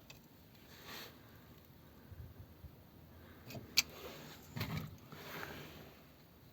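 Faint rustling and light knocks of something being handled, with one sharp click a little past the middle.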